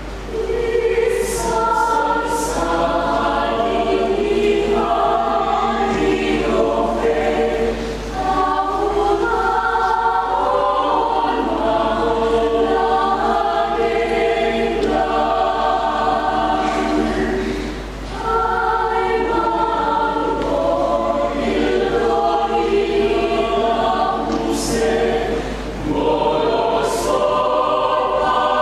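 Church choir singing in several voices at once, in long phrases with short breaks for breath about 8, 18 and 26 seconds in.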